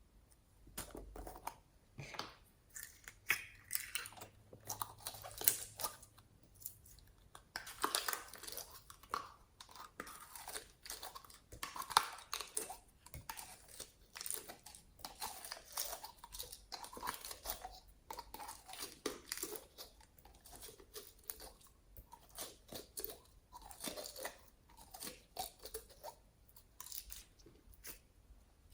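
Slime being squeezed and kneaded by hand, making dense, irregular crackling and squishing pops.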